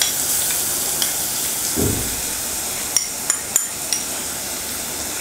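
Shallots, curry leaves and chillies sizzling steadily in hot coconut oil in a pressure cooker as a crushed ginger, garlic and fennel paste goes in. A few sharp clicks come about three seconds in.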